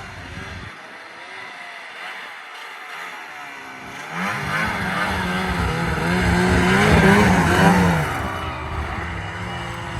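2001 Ski-Doo MXZ 600's two-stroke twin engine idling with a wavering pitch. About four seconds in it is revved up, held at higher revs to a peak near seven seconds, then let back down to idle.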